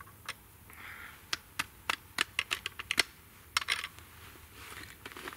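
Percussion muzzleloader being reloaded by hand: a run of light, irregular metallic clicks and taps as the ramrod and loading parts knock against the barrel, with a little soft rustling between.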